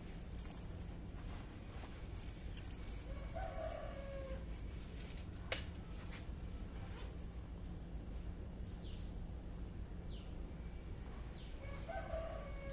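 Two short animal calls, each about a second long and about eight seconds apart, over a steady low rumble. A single sharp click comes about halfway through, and faint high chirps of small birds follow in the second half.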